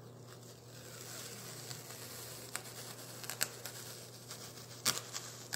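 Masking tape being peeled off its roll: a soft crackling tear with a few sharp ticks. The roll has been warmed in a microwave, so the tape comes away in one long, even strip.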